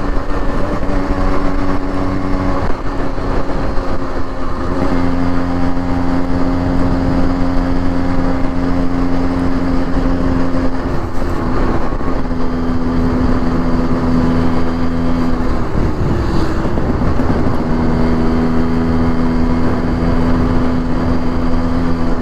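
Yamaha RX135's two-stroke single-cylinder engine running steadily at highway cruising speed. Its note dips and comes back a few times as the throttle eases and opens again, over a low rush of wind noise.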